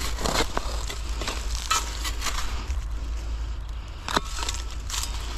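Small metal shovel stabbing and scraping into soil and dry leaf litter, a handful of separate crunching strikes, the sharpest a little after four seconds, as the blade works at a root in the hole.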